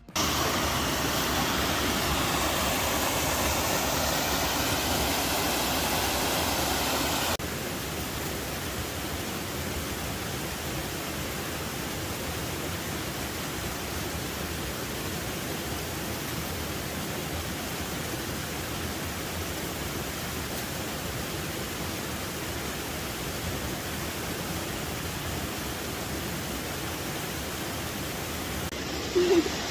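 Waterfall rushing steadily. About seven seconds in the level drops a little and stays even, and there is a brief louder sound just before the end.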